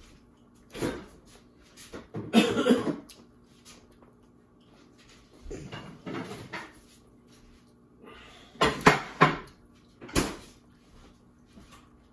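A fork clinking and scraping against a bowl in several short bursts a few seconds apart, the loudest near the start and again a little past the middle.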